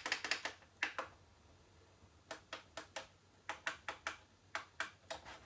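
Push buttons on an OWSOO DVR clicking as they are pressed: a quick run of clicks at the start, a single click, then after a short pause more clicks at an uneven pace of two or three a second. The recorder does not respond to them: it is hung on its startup logo screen.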